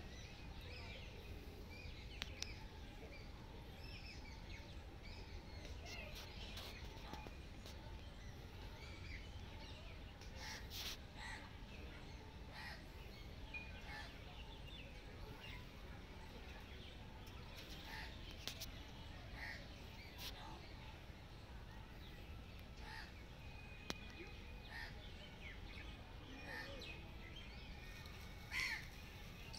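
Outdoor park ambience: a steady low hum of background noise with scattered short bird calls, one louder call near the end.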